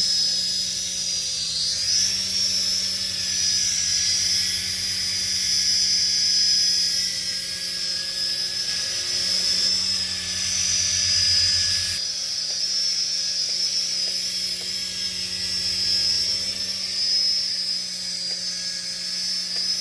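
Toy RC helicopter's small electric motors and rotors whining in flight: a steady high whine that drifts slightly up and down in pitch.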